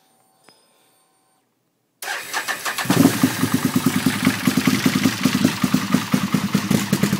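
A Can-Am 975 cc Rotax V-twin ATV engine with Gen 2 cams, an aftermarket intake and a Muzzy exhaust is cranked on the starter about two seconds in. It catches within a second and settles into an idle with an uneven, pulsing beat.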